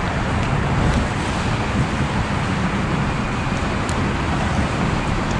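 Boat motor running steadily to hold the boat in position, under a constant rush of wind and water.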